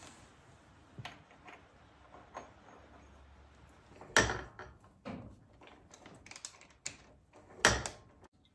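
Scattered clicks and knocks of tools and metal parts being handled while working on a motorcycle, with two louder clanks about four seconds in and near the end.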